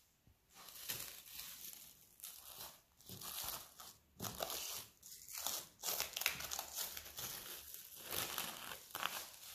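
Plastic cling film crinkling in irregular bursts as it is stretched over a glass bowl and pressed down around the rim.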